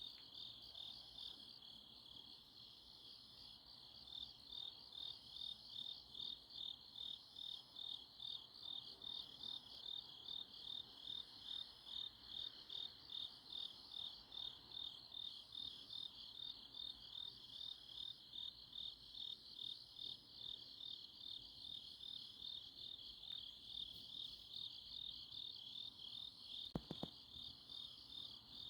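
Autumn-night chorus of grass insects chirping, a high, even, pulsing trill at about two pulses a second. A brief faint click about 27 seconds in.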